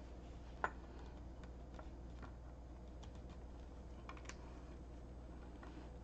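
A few faint, short clicks and taps from hands handling a coax cable and a razor blade on a wooden cutting board, one louder click under a second in, over a low steady hum.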